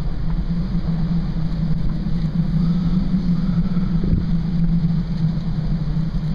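Steady low drone of a car's engine and tyres heard from inside the closed cabin while the car creeps over a sand-drifted road.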